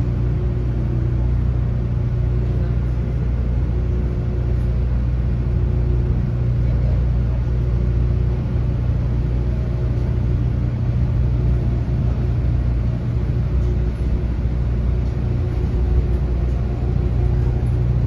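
Inside a JNR-era 455/413-series electric express train pulling slowly away from a station: a steady low rumble of the running gear and motors. A faint hum rises in pitch near the end as the train gathers speed.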